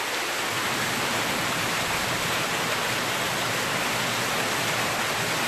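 Steady rushing hiss of running spring water, even and unbroken, cutting in and out abruptly.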